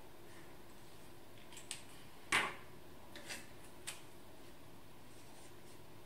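Felt-tip marker drawing on thin paper: a few short, scratchy strokes, the loudest a little over two seconds in, with quiet stretches between.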